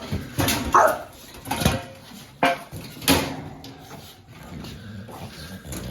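A kennel gate being shut and latched: about five sharp knocks and clanks in the first three seconds, then quieter rattling.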